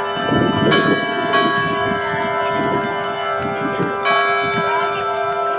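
Church tower bells rung by hand on ropes, several bells striking in turn. Each new stroke sounds over the long ringing hum of the ones before.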